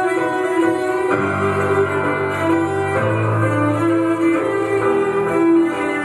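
Performance music: a slow melody over sustained low notes that change about every two seconds.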